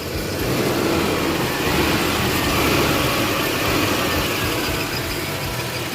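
Mitsubishi Fusion's engine idling steadily on a cold start, running again now that the fouled crankshaft position sensor behind its crank-no-start fault has been replaced.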